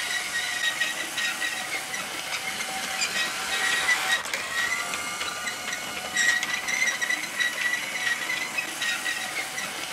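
Vintage LEGO 182 battery train running on plastic track: a steady, slightly wavering high motor whine with a light rattle and ticking from the wheels and gearing.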